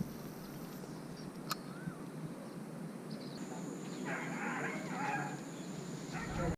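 Steady outdoor background noise with a few faint bird chirps, and a busier burst of calls about four seconds in.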